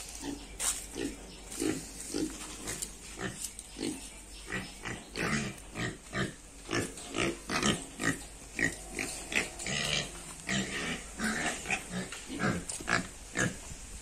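Young pigs in a pen grunting over and over, in short irregular calls one after another.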